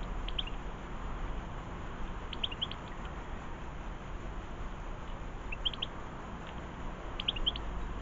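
Small songbird chirping: short clusters of three or four quick high notes, repeated every two to three seconds, over a steady low background rumble.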